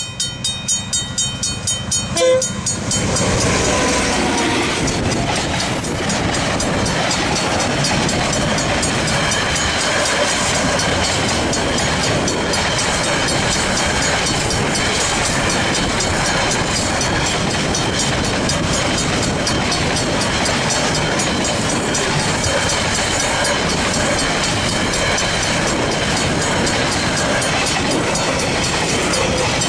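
Griswold mechanical level-crossing bells ringing in a quick, even rhythm, then a short loud burst about two seconds in as a container freight train reaches the crossing. The wagons then roll past steadily, their wheels clattering over the rails and covering the bells.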